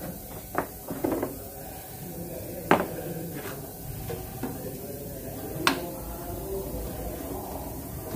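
Scattered light knocks and clicks, about six in all, from paint-mixing containers and tools being handled and set down, the sharpest about three seconds in. A low steady background sound runs underneath.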